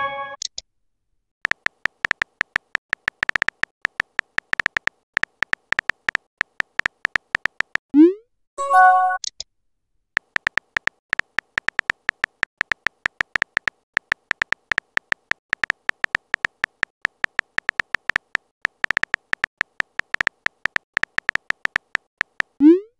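Rapid clicks of a phone keyboard typing sound effect, stopping about eight seconds in for a short rising pop and a brief multi-note message chime, then carrying on with more rapid typing.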